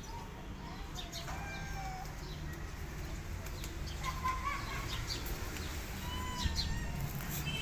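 Small birds chirping intermittently, with short high calls scattered throughout over a low steady background rumble.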